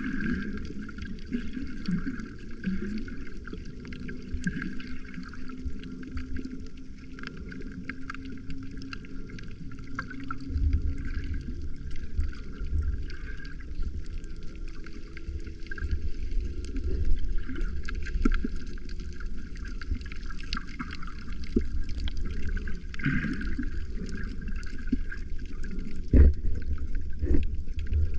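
Muffled water sounds from a camera held under the surface: sloshing and gurgling with a low rumble of moving water. There are a few dull knocks near the end.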